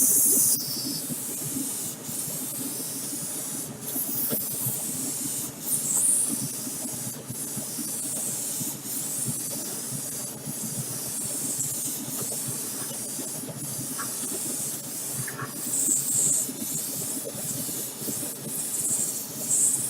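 Clear coat being sprayed onto a model car body: a steady high hiss broken by brief pauses between passes, over a low steady hum.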